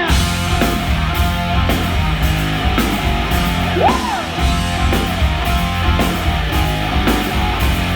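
Live rock band playing an instrumental passage: distorted electric guitar over bass and drums, with regular drum and cymbal hits. About four seconds in, a note bends up and back down.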